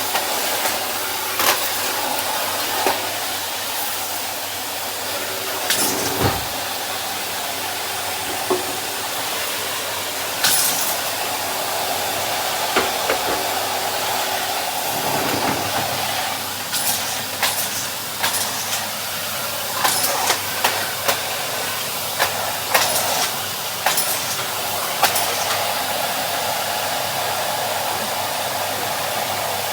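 Henry cylinder vacuum cleaner running steadily, with a hiss of suction, broken by many short clicks and knocks.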